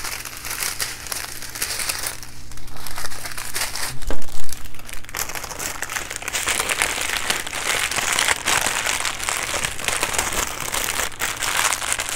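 Small plastic bags of diamond-painting drills crinkling and rustling as they are handled and bundled up by hand, with a louder knock about four seconds in.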